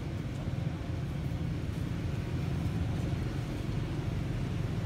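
Steady low rumble of outdoor background noise, even and unbroken, with no distinct knocks or calls standing out.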